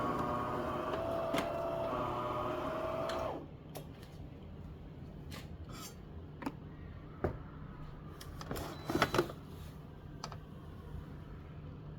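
Small electric motor inside a De'Longhi coffee machine running with a steady whine, cutting off suddenly about three seconds in. Then a few light clicks and knocks.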